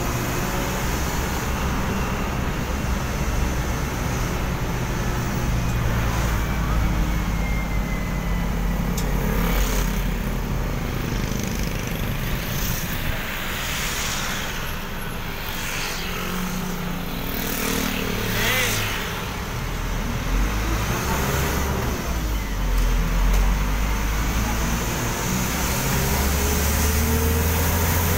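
Isuzu NQR minibus's diesel engine running with tyre and road noise while the bus drives along, heard from inside the passenger cabin; the engine note shifts up and down in steps as it speeds up and slows.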